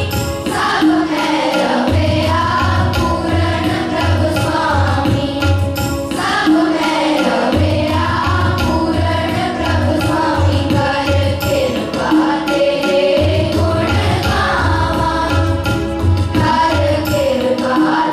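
A group of voices singing a Sikh shabad (devotional hymn) over a steady low drum beat; the drum drops out briefly a few times while the singing carries on.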